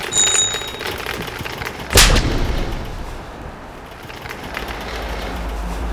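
A bicycle bell rings briefly, then about two seconds in comes a single loud, sharp bang with a short ringing tail.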